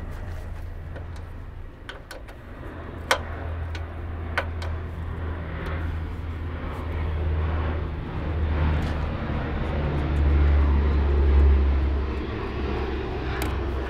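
A low engine rumble that grows louder about eight to twelve seconds in. Over it come a couple of sharp metal clicks, about three and four and a half seconds in, from a gear wrench working the nut on a hood shock.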